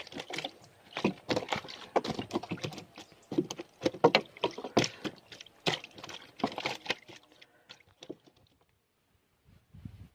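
Irregular splashes and knocks of water, stopping about eight seconds in.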